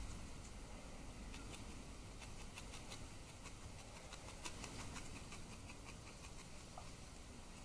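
Faint, irregular soft clicks and light rustling of hand crafting work on a needle-felted wool robin's wings, with tools on wool and fibres being pulled and shaped.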